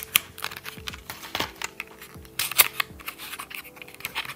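Irregular small clicks and taps of lip liner pencils and their plastic packaging being handled and opened, the loudest about two and a half seconds in, over quiet background music.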